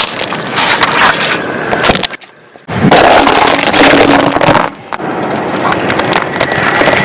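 A car rolling over and crushing objects, a loud crunching and rolling noise that drops out and resumes abruptly twice.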